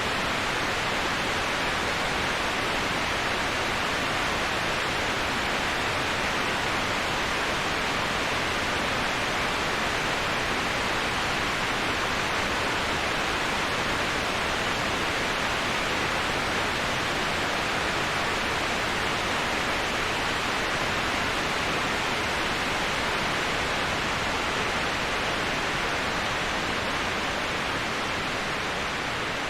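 Waterfall rushing: a steady, even hiss of falling water, fullest in the upper middle range, easing off slightly near the end.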